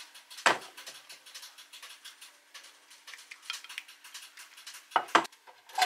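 Basting brush dabbing peanut sauce onto mushroom satay skewers on a plate: a run of soft ticks and taps, with a sharper knock about half a second in and two quick clicks near the end.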